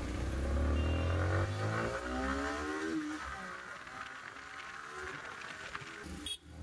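Motorcycle engine accelerating, its pitch climbing for about three seconds, then running more quietly, with a brief dropout near the end.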